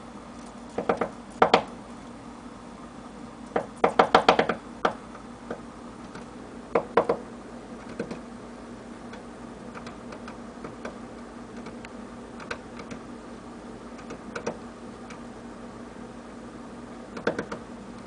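Downy woodpecker pecking at a mud-dauber nest to get at the larvae: irregular bursts of sharp taps, the longest quick run about four seconds in, then sparser taps.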